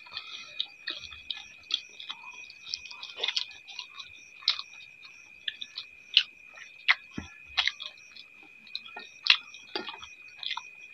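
Two people eating rice by hand: irregular sharp clicks and smacks of chewing and mouth noises, several a second at times. A steady high-pitched whine runs underneath.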